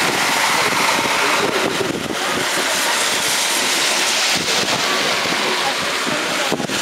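Wind rushing over a microphone held out of a moving train's window, mixed with the steady running noise of the steam-hauled train.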